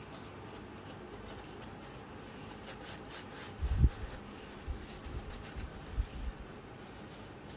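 Rubbing at a laptop screen, then a run of dull low thumps from handling the laptop; the loudest thump comes a little under four seconds in.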